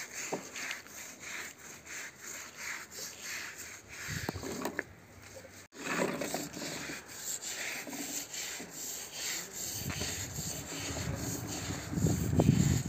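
Hand scrub brush scrubbing a wet, soapy carpet laid on concrete in quick back-and-forth strokes, about two to three a second. Near the end a louder rumbling joins in from a plastic toy truck's wheels rolling over the concrete.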